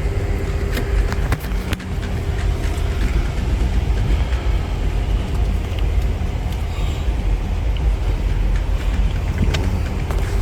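Steady low rumble of a car, with a faint steady hum and a few light clicks and taps.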